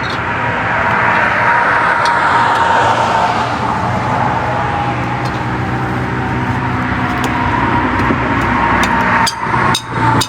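Road vehicle noise: a steady engine hum under traffic noise that swells and fades as a vehicle passes, about two to four seconds in. A few clicks near the end.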